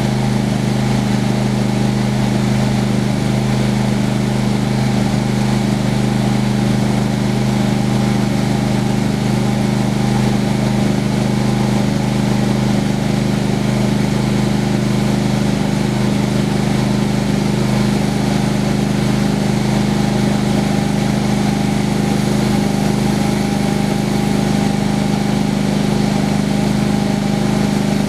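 Engine of a homemade sawmill running at a steady speed, a constant hum with no change in pitch or level.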